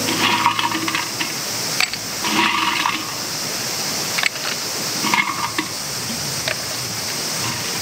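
Liquid poured into a tall glass packed with ice, making a highball, with a few clinks of the ice.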